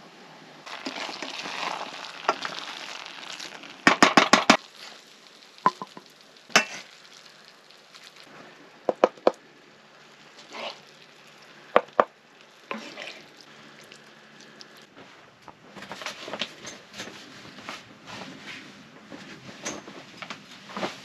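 Diced meat sizzling in sauce in a frying pan while a spatula stirs and scrapes it. About four seconds in comes a quick run of sharp taps on the pan, with single clicks scattered through the rest.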